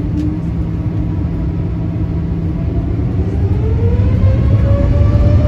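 Boeing 787-9 turbofan engine heard from inside the cabin: a steady low rumble, then from about three seconds in a whine that rises in pitch and grows louder as the engine spools up for take-off.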